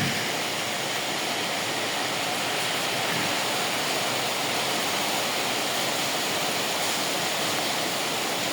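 Steady rain falling: an even hiss that holds without a break.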